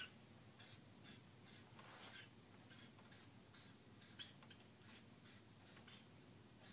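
Near silence with faint room tone and soft, irregular scratchy ticks, roughly two a second.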